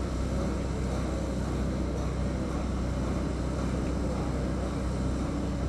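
Steady, deep rumble of ship engines and machinery.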